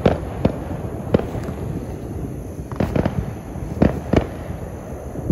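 Neighbourhood Fourth of July fireworks going off: irregular sharp bangs and pops, some in quick pairs, over a steady background of outdoor noise.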